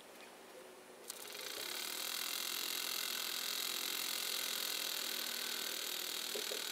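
Miniature tea-light-heated Wilesco steam engine running, its oscillating cylinder and flywheel making a fast steady hissing whir. A sharp click comes about a second in, and the sound rises to full level just after it.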